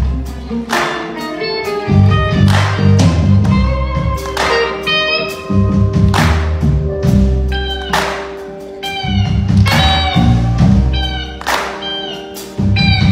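Live blues-rock band playing an instrumental passage: an electric guitar plays a lead line of bent notes over drums and a low bass part.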